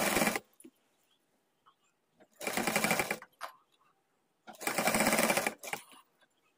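Sewing machine running in three short bursts with pauses between. The first stops just after the start, and the next two last about a second each, as it stitches lace onto fabric over a frill.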